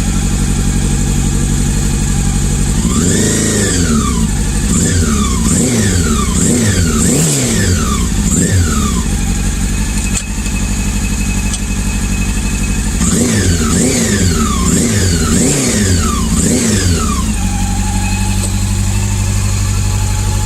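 Honda CB400 four-cylinder motorcycle engine idling, with its throttle blipped in two runs of quick revs about 3 s and 13 s in, settling back to idle after each. It runs on three cylinders because cylinder No. 3 is not firing, though it holds its idle.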